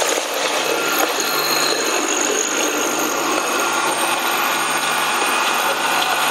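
Ginger paste colloid mill running: a steady, loud machine noise with a low motor hum and a thin high whine over a broad rushing sound.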